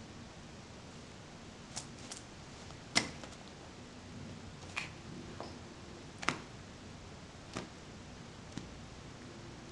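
Seven short, sharp clicks at irregular intervals, the loudest about three seconds in, over a faint steady room hiss.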